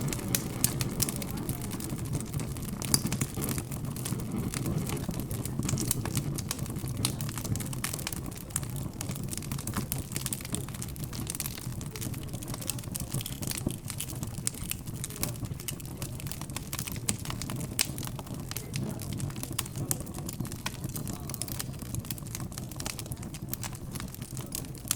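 Wood fire crackling with many small pops, over a steady murmur of indistinct background chatter.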